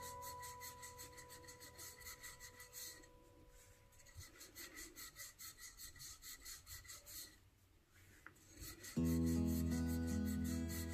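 Wooden rolling pin rolling back and forth over paratha dough on a floured stone countertop, giving a rhythmic rasping rub. Louder background music comes in near the end.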